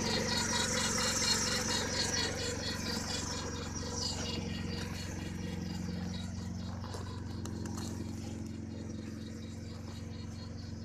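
VAZ-1111 Oka's two-cylinder engine idling on its own while warming up from a cold start. Over it is a rapid, evenly repeating high chirp, the squeak of the timing belt, which fades after about four seconds.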